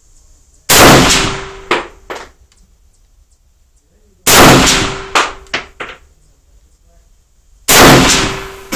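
Three single rifle shots from a Ruger Mini-30 semi-automatic in 7.62x39, fired slowly about three and a half seconds apart, each followed by a short trailing echo and a few small clicks.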